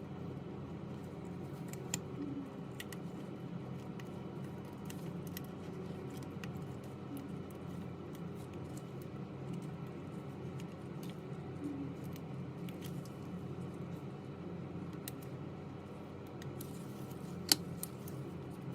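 Small, scattered clicks and taps of hand tools and phone parts being handled over a steady low hum, with one sharp, louder click near the end.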